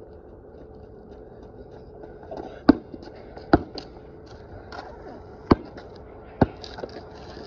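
Basketball bouncing on a concrete driveway close by: four sharp, loud bounces at uneven intervals starting about two and a half seconds in, with a few fainter knocks and shoe scuffs between.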